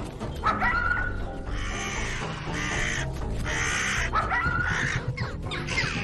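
Carrion crows cawing harshly and repeatedly, with music underneath.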